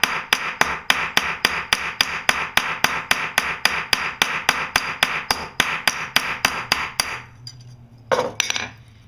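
Ball-peen hammer tapping quickly and evenly, about four strikes a second, peening the cut end of a roofing nail flat over two metal plates to form a homemade rivet head. Each strike rings metallically. The hammering stops about seven seconds in.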